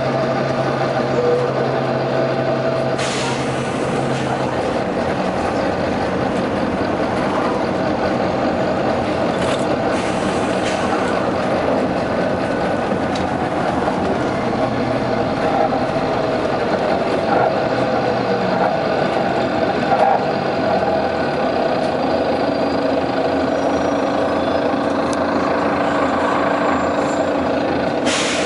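Volvo B9TL double-decker bus running, with short sharp bursts of air hissing from its air system: one about three seconds in, fainter ones near the middle, and another near the end.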